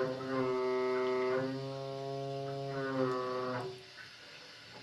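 Broken, leaking water tap humming: a steady horn-like drone with a rich stack of overtones, its pitch shifting slightly partway through. It stops after nearly four seconds.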